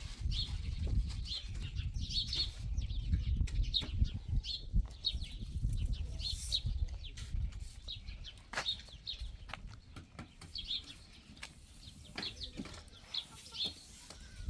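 Small birds chirping again and again in short high notes, over a low rumble that fades in the second half, with a few sharp knocks.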